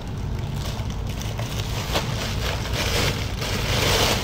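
Thin plastic carrier bag rustling and crinkling as it is untied and pulled open by hand, getting louder near the end, over a steady low hum.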